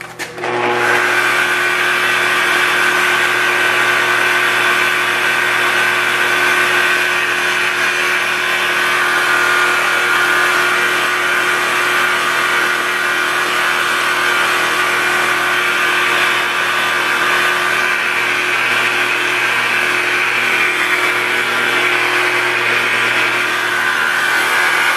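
Electric rotary polisher with a foam pad buffing rubbing compound into sanded black car paint, cutting out sanding scratches: a loud, steady motor whine that starts about half a second in and holds an even pitch.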